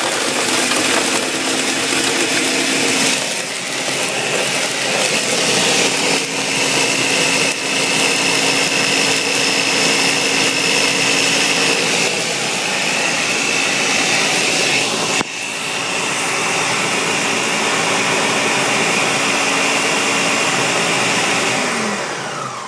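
Countertop blender set to mode 3, running loud and steady as it blends milk, chocolate syrup and ice into a thick drink. The motor hum dips briefly about fifteen seconds in, then falls in pitch as the motor winds down near the end.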